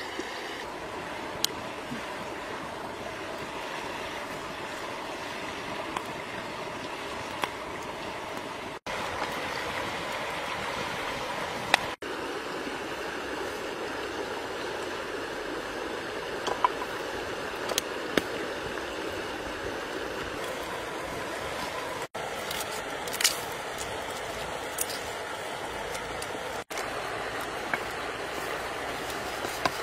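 A shallow river running over rocks: a steady rushing of water, with a few faint clicks and taps over it.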